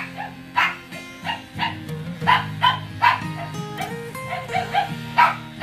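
A dog barking repeatedly in short, sharp barks, about two a second, over background music.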